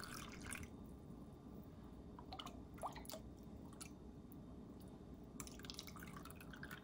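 Faint dripping and trickling as broth is ladled from a stainless steel pot and poured through a fine mesh strainer, in a few short spells.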